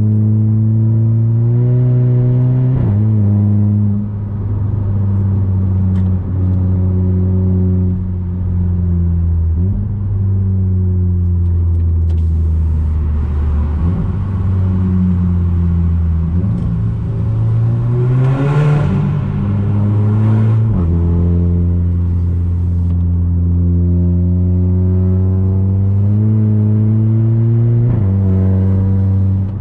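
Audi A3 8P 2.0 TFSI turbocharged four-cylinder with a 2.5-inch downpipe and cat-back exhaust, heard from inside the cabin while accelerating. The engine note climbs through each gear and drops at the S-tronic gearbox's upshifts, several times.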